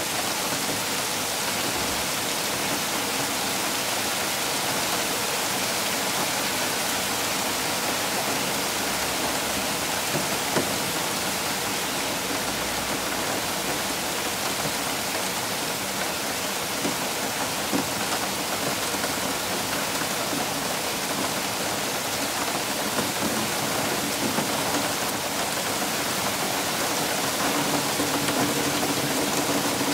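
Heavy hail falling on garden soil and plants: a steady, dense hiss of small hailstones striking the ground, with a few sharper single ticks standing out.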